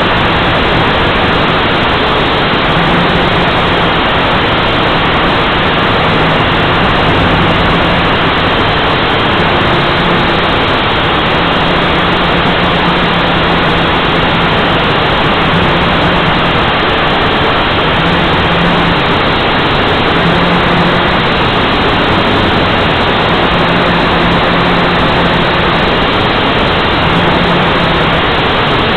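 HeliMax 230 si drone's motors and propellers heard through its own onboard camera: a loud, steady rushing whir with a low hum that comes and goes as the throttle changes.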